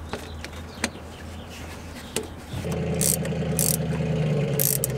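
A motor runs steadily at one pitch for a little over two seconds, starting and stopping abruptly, with a few sharp high clicks over it. Before it comes on there is only a low hum and a couple of light clicks.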